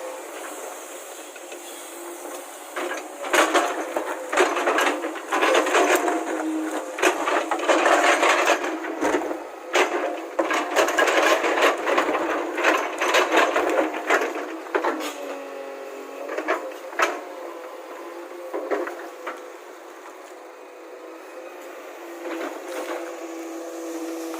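Diesel engine of a JCB backhoe loader running steadily, with a dense stretch of sharp metallic knocks and clatters from about three seconds in until about fourteen seconds in, then only the engine again.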